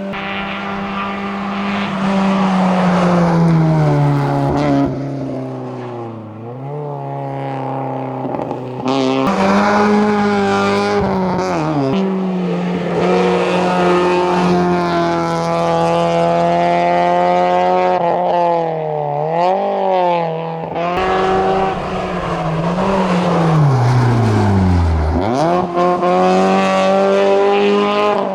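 Opel Tigra hillclimb car's four-cylinder engine driven hard. The revs climb and then drop sharply several times as it shifts gear, and near the end the pitch sweeps down and climbs again as it slows for a corner and accelerates away.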